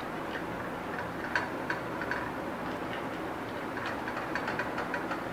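Irregular light clicks and taps of a spoon and glass mixing bowl as flour is stirred into a butter and almond mixture, over a steady background hiss.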